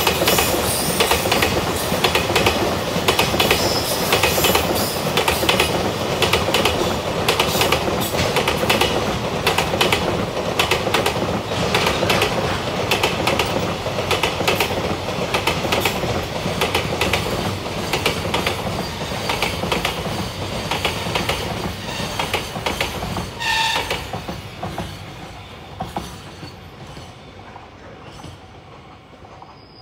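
Freight train running past, its wagon wheels rumbling and clattering steadily over the rail joints. A brief squeal comes about three-quarters of the way through, and then the sound fades away as the last wagons go by.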